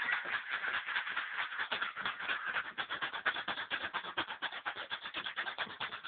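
Cloth rubbing and brushing right against the recording phone's microphone: continuous, scratchy rustling handling noise.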